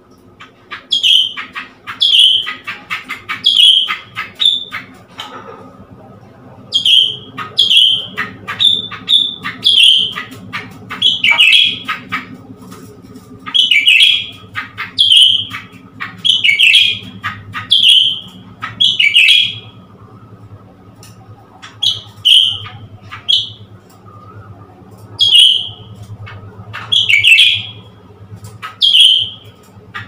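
Caged blue-winged leafbird calling: loud, sharp notes about once a second, with quick chattering clicks between them and a few short pauses. A steady low hum runs underneath.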